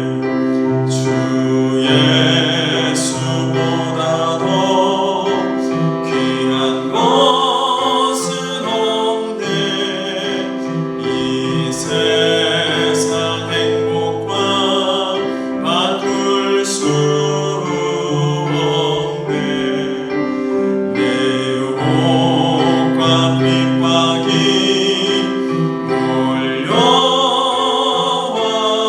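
A church hymn sung by several voices over instrumental accompaniment, with long held notes.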